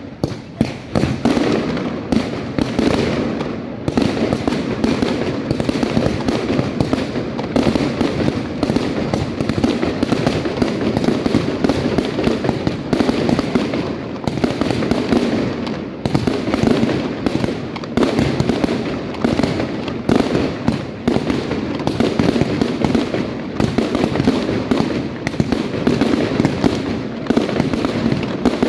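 Fireworks going off in a dense, continuous barrage of rapid bangs and crackles, many per second with no pause.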